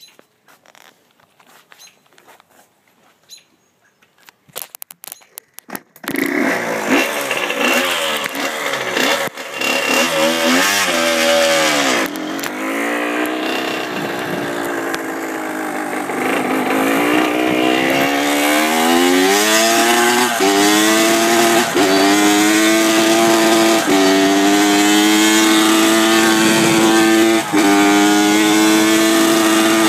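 Honda CR85R two-stroke dirt bike engine starts pulling about six seconds in and is ridden hard. Its pitch climbs and drops back sharply several times, as if shifting up through the gears. The owner says the bike has no powerband. Before that come only faint scattered clicks.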